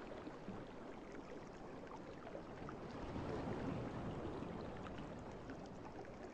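Faint, steady background noise, a low hiss and rumble without any clear voice, swelling slightly about halfway through.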